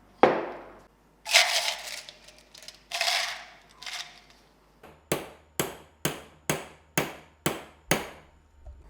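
Workshop hand work on a pressed-steel toy truck: a sharp knock, two longer scraping sounds, then seven sharp, evenly spaced taps about two a second.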